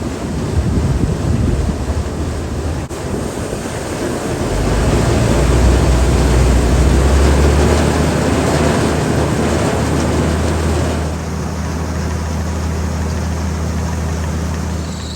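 Heavy engine running steadily under wind noise on the microphone; the low engine hum comes up about four seconds in, and the hiss eases around eleven seconds.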